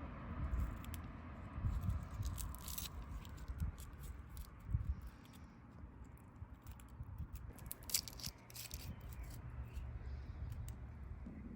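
Scattered clicks, taps and rustles of things being handled, over a low rumble.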